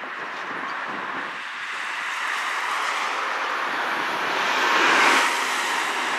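A vehicle passing close by on the road, its tyre and road noise swelling to a peak about five seconds in and then fading.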